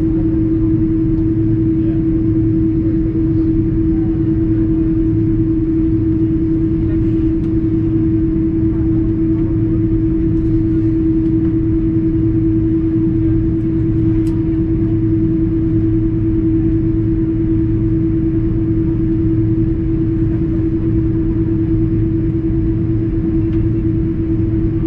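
Airbus A330-200 cabin noise: the jet engines and airflow make a steady drone with a constant hum-like tone running through it, unchanging in level.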